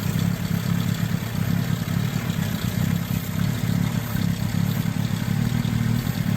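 Toyota 22R four-cylinder engine idling steadily, an engine its owner says has a vacuum leak.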